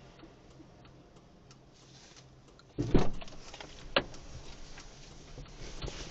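Quiet car interior, broken about three seconds in by a sudden thump and, a second later, one sharp click.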